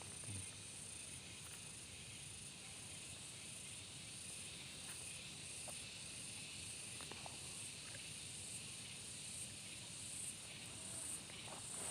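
Insects chirring in a steady high-pitched drone that pulses slightly, with a few faint short calls now and then.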